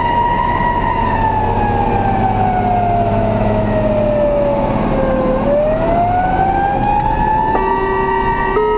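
Rescue truck's emergency siren heard from inside the cab over the engine's rumble, its pitch sliding slowly down over about four seconds and then rising back up. Near the end a horn sounds a steady chord for about a second, then changes pitch.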